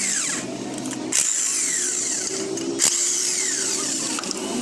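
Power tool running in a workshop, with sharp new starts about a second and about three seconds in, each followed by a falling whine.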